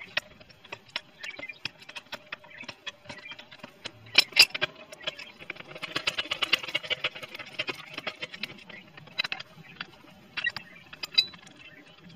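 Irregular metallic clicks, clinks and knocks from an alloy wheel and its wheel bolts being handled and offered up to a car's hub, with a busier run of rattling in the middle and the loudest knocks about four seconds in.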